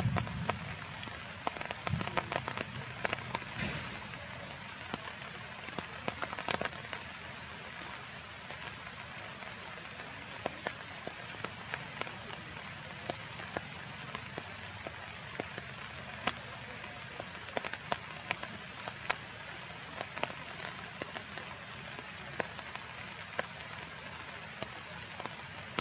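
Steady rain falling on foliage, with scattered sharp drops ticking on leaves.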